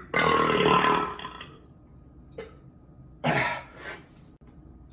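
A man burping loudly after drinking beer: one long burp lasting about a second and a half, then a shorter one a little past three seconds in.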